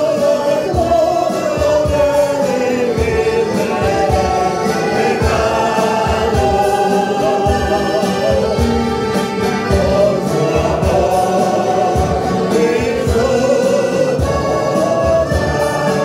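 A church choir singing a Spanish hymn, accompanied by strummed acoustic guitar and accordion.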